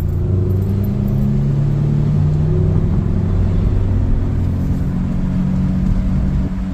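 2009 Honda Civic driving with a loud, steady low drone coming from the back of the car, the noise of a bad rear wheel bearing.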